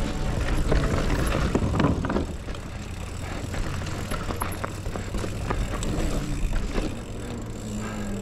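Commencal Meta HT hardtail mountain bike rolling fast down a dirt trail: tyre noise on loose dirt with many quick rattles and knocks from the bike over bumps. It gets quieter near the end as the bike rolls off the dirt onto smooth pavement.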